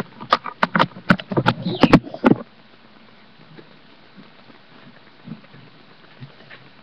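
A quick run of about a dozen sharp knocks and thumps close to the microphone over the first two seconds or so, then only faint room sound.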